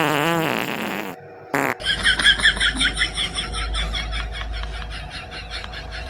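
Fart noises: a drawn-out pitched one at the start, a short one about a second and a half in, then a long, rapid fluttering one that fades toward the end.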